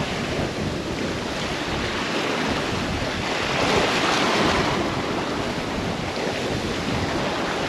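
Sea water rushing along the hull of a sailboat under way, with wind buffeting the microphone; the rush swells about halfway through.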